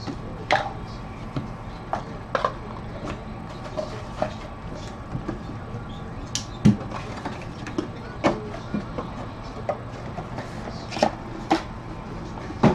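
Handling noise: a dozen or so scattered knocks and clicks as a hinged card box is closed, set down and moved on a padded table and cards are handled, over a faint steady hum.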